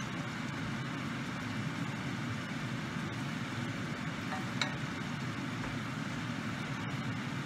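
Chicken simmering in sauce in an open pot, bubbling with a steady hiss; a wooden spoon knocks once against the pot a little past the middle.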